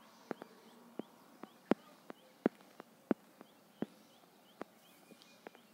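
A series of about a dozen sharp clicks at irregular intervals, with faint short high chirps in the background.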